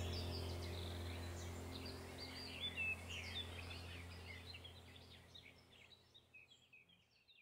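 Small birds chirping in quick short calls over a low steady hum, with everything fading out gradually.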